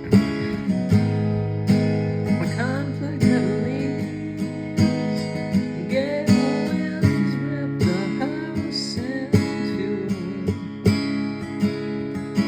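Acoustic guitar strummed in a steady rhythm, a stroke about every three-quarters of a second, with a wavering melody line over the chords through the middle.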